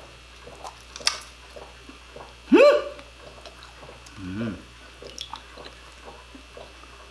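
People eating seafood: chewing and mouth sounds with small clicks and rustles from handling food. About two and a half seconds in comes a loud rising vocal exclamation, and a little after four seconds a short hummed 'mm'.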